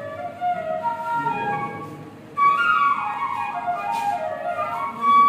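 Flute music: a slow melody of long held notes that slide from one pitch to the next.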